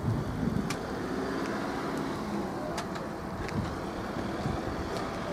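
1997 Jaguar XK8's 4.0-litre V8 idling steadily, heard at the exhaust.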